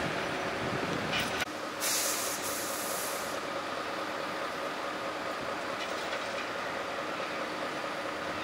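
Scania R650 heavy truck's V8 diesel engine running steadily as the loaded truck moves off slowly. A burst of hissing air, about a second and a half long, comes about two seconds in.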